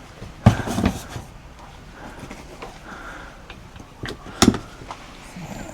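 Two sharp knocks about four seconds apart, the second louder, with low rustling between them.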